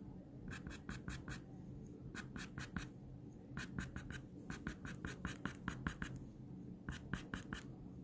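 Pastel pencil scratching on pastel paper in quick, short strokes, coming in bursts of four to six strokes with short pauses between them.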